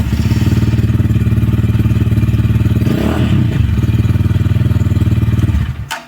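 Motorcycle engine running steadily close up, with a fast even pulse, then shut off suddenly near the end.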